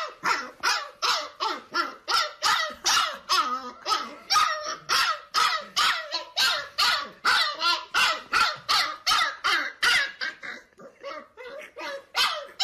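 A dog barking over and over in a fast, even run of about three barks a second. Near the end the barks turn fainter and sparser.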